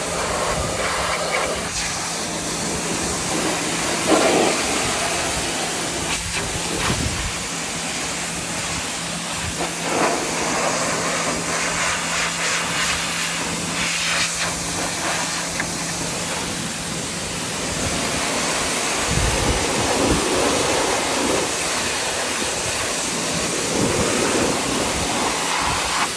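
Greenworks Pro 3000 psi electric pressure washer spraying through a 40-degree tip, the high-pressure water jet hissing steadily as it blasts mud off an ATV. A steady hum sits under the spray and drops out about three-quarters of the way through.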